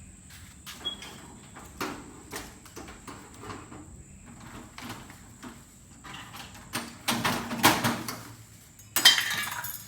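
Tools being rummaged through for something to open a box: scattered knocks and clicks, then two louder stretches of clatter near the end.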